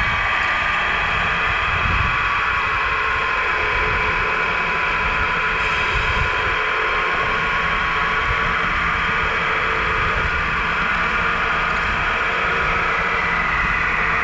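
1/14-scale Tamiya RC semi truck running, a steady whine of several tones whose pitch drifts slowly up and down as its speed changes, over an uneven low rumble.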